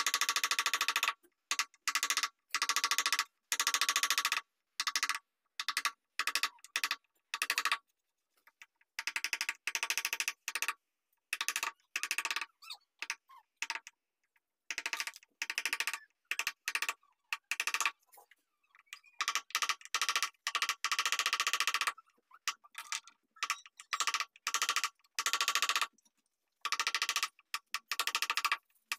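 Rapid tapping of a wooden mallet on a wood-carving chisel cutting into a wooden panel, in bursts of a second or two that stop and start again.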